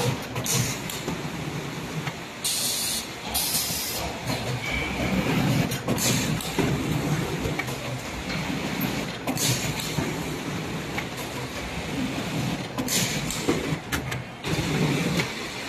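Plywood core veneer composer running with a steady mechanical clatter of its feed rollers and chains. Several short bursts of hiss cut through, the loudest two about 2.5 and 3.5 seconds in.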